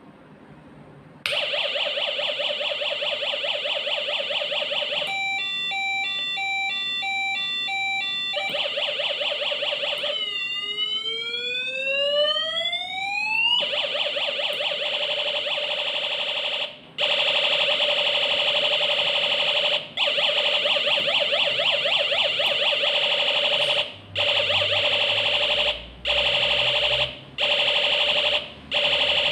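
Homemade electronic police siren circuit sounding through a small speaker and running through several siren patterns. It opens with a rapid buzzing tone, switches to a quick high-low two-tone alternation about five seconds in, then gives one long rising wail about ten seconds in. The buzzing tone then returns and cuts out briefly several times toward the end.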